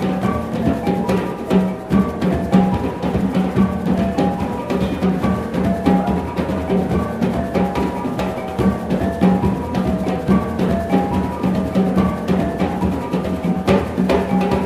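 Indigenous Filipino gong-and-drum ensemble playing. A rack of small tuned gongs repeats a quick melodic pattern over drum strokes and a steady low tone.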